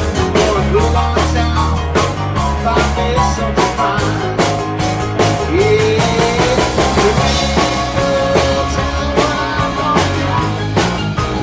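Rock band playing an instrumental passage: a drum kit keeps a steady beat under bass, with a lead line of sliding, bending notes over it.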